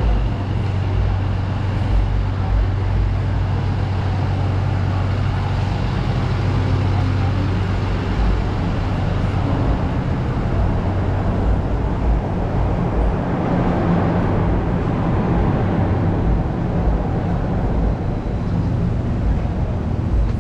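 City street traffic: a steady low engine drone with traffic noise over it. The noise grows louder about two-thirds of the way through as a vehicle passes, then eases off.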